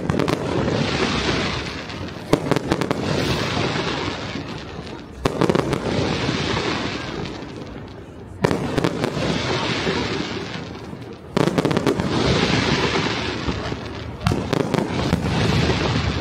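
Fireworks display: six bangs of bursting aerial shells about three seconds apart, each trailing off into a couple of seconds of crackling.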